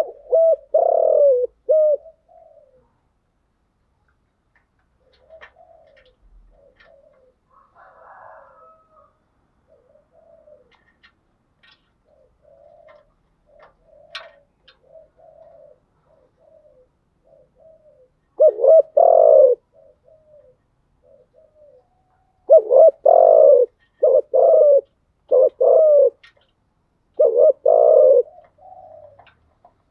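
Spotted dove cooing: a loud bout of deep coos at the start, soft short coos for the next quarter-minute, then loud bouts of coos again in the last third.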